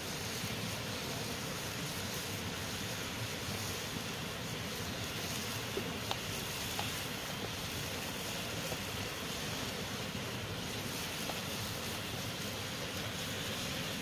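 Steady rushing of river water, with meat and vegetables sizzling in a sac pan over a wood fire. A few faint clicks come about six seconds in.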